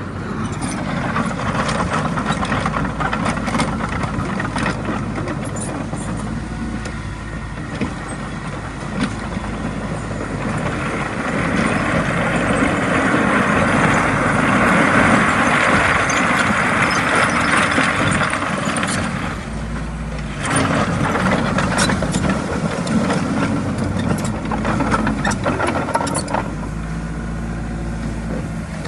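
Komatsu D20A bulldozer's diesel engine running under load while pushing soil, with frequent clanks and knocks of the working machine. The sound swells louder and harsher from about 11 to 19 seconds in, then eases off briefly.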